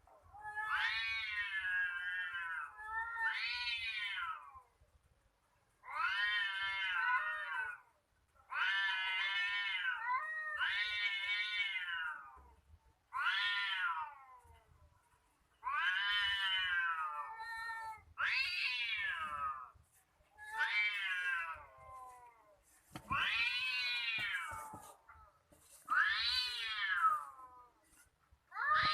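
Cats caterwauling in a fight: a run of about a dozen long, wavering yowls, each a second or two long, with short pauses between them.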